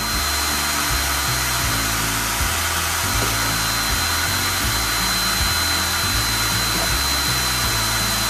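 Small motor of a handheld electric kitchen appliance running steadily, with a thin high whine on top.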